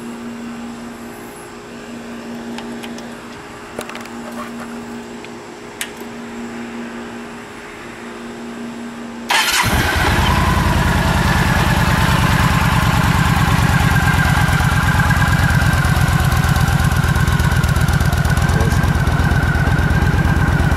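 A 2011 Yamaha Star Stryker's 1300 cc liquid-cooled V-twin starts up about halfway through and settles into a steady, evenly pulsing idle through its stock exhaust. Before that there is only a steady low hum and a couple of clicks.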